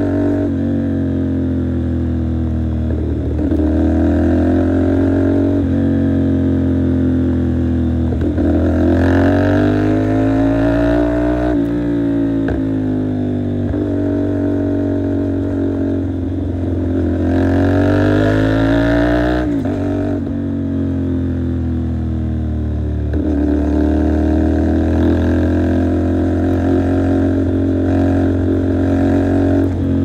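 CFMOTO 450SR parallel-twin engine under way, its pitch climbing several times as the rider accelerates and dropping as the throttle is rolled off, with a sharp fall in pitch about two-thirds of the way through.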